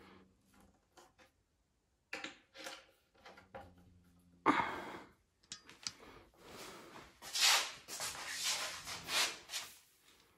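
Knocks and scraping from handling and fitting the melamine-faced particleboard panels of a flat-pack cabinet: scattered light clicks, a loud knock about halfway through, then a run of rubbing strokes about half a second apart near the end.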